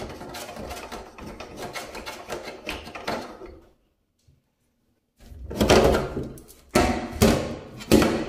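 A loose kitchen faucet being rattled and worked free from a stainless-steel sink: clattering and knocking, a short break of silence, then three loud thumps in the second half.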